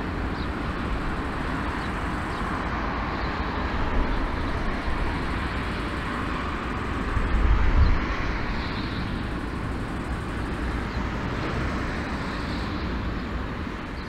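Jet engines of a taxiing four-engined Airbus A340-300 (CFM56-5C turbofans) making a steady, even rush, with a louder low rumble about eight seconds in.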